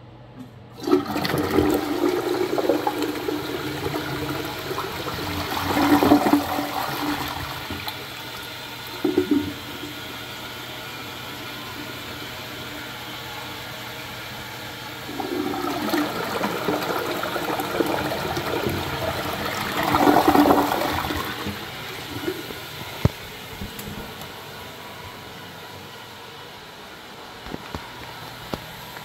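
American Standard open-rim tank toilet flushing. A sudden rush of water starts about a second in and swells to its loudest around six seconds. A second rush and swell comes in the second half, then fades to a quieter steady water sound.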